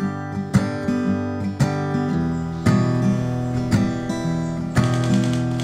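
Background music: an acoustic guitar strumming chords in a steady rhythm, a strum about once a second.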